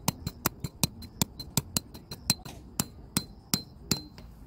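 Hammer driving a tent peg into stony ground to anchor a guy line: a run of quick strikes, each with a short ring, about five a second at first and spacing out over the last couple of seconds.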